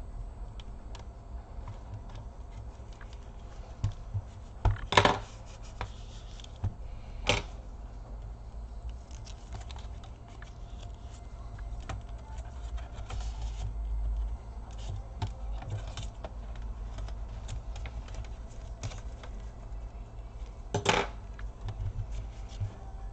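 Plastic laptop case being pried apart with a sharp tool: scattered small clicks and scrapes, with louder snaps as the case's clips let go about five seconds in, again two seconds later, and once near the end.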